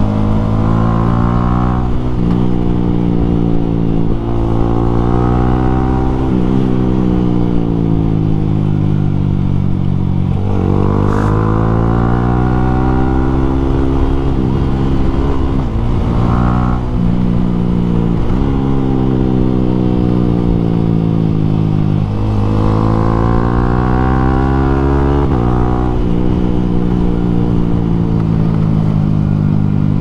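Yamaha Sniper 155R's single-cylinder engine through an Akrapovic M1 exhaust, under way. Its pitch climbs and then drops sharply again and again as it shifts up through the gears, with longer stretches where the pitch falls slowly as it eases off.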